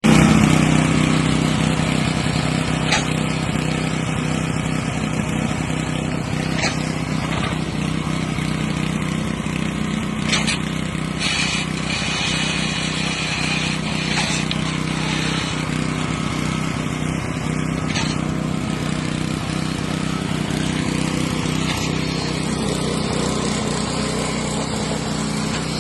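Diesel engine of a concrete pump running steadily under load, with a sharp knock about every four seconds.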